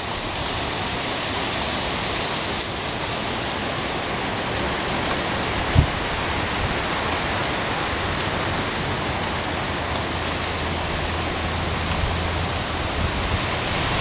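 Strong wind rushing through palm fronds and tree leaves, a steady hiss, with one brief gust thump on the microphone about six seconds in.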